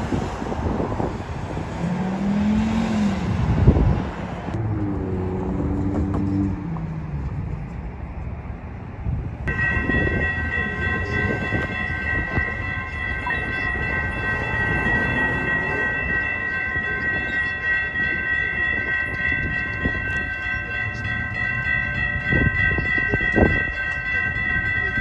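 Street traffic with a car passing and its engine note rising and falling. From about ten seconds in, railroad crossing warning bells ring steadily at an active grade crossing, meaning a train is approaching.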